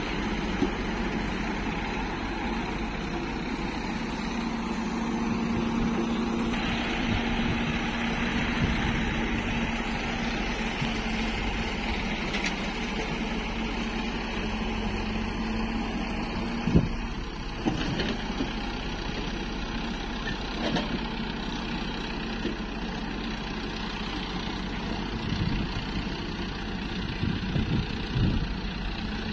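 Heavy diesel engines running steadily: a Hyundai 140 excavator and a Sonalika farm tractor pulling a trolley loaded with earth. A few sharp knocks come in the second half.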